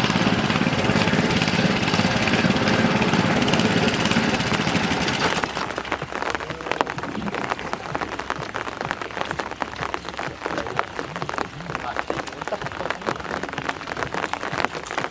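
Small engine-driven water pump running steadily through rain. About five seconds in it stops abruptly, leaving rain pattering.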